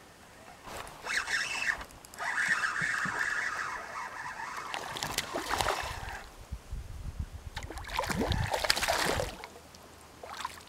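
A hooked pickerel splashing and thrashing at the surface beside the canoe while the line is reeled in. The loudest splashing comes near the end.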